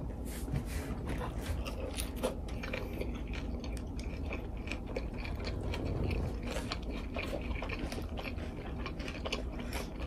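A person chewing gyoza close to the microphone, with small irregular crunches and mouth clicks.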